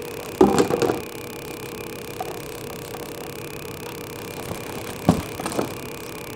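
Short bursts of handling noise, once about half a second in and again around five seconds, as hands move through the leaves of a potted night-blooming cereus, over a steady machine-like hum with a faint held tone.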